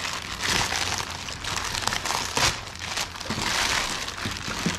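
White plastic poly shipping mailer crinkling and rustling as hands pull it open and crumple it apart, in an irregular, continuous crackle.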